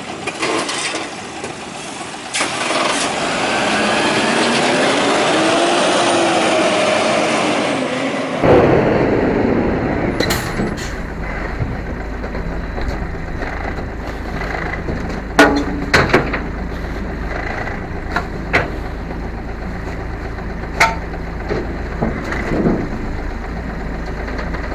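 Rubbish truck at work: first a loud whine from its hydraulics and engine that rises and falls in pitch for several seconds, then, after a cut, the truck's diesel engine idling with several sharp metallic clanks.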